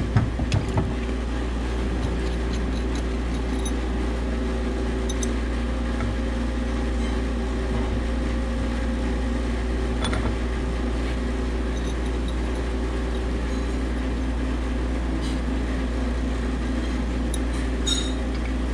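Steady machinery hum with a deep drone and a few held tones, with a few light metallic clinks of tools near the start, about halfway, and near the end.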